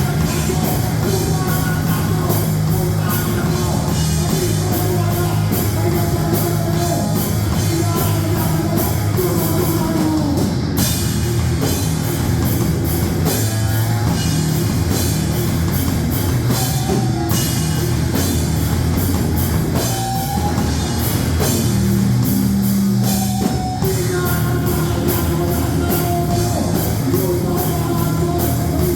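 Loud heavy rock or metal music with distorted guitars, a pounding drum kit and singing.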